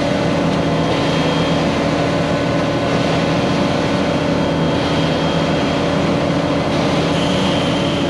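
Heavy diesel engines of a ready-mix concrete truck and a truck-mounted concrete boom pump running steadily, at an even level.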